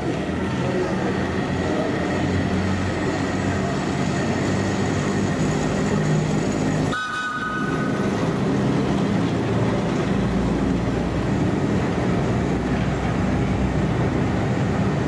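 Metropolitan Railway electric locomotive hauling its train, with steady running noise from the wheels and rails. A short whistle sounds about seven seconds in.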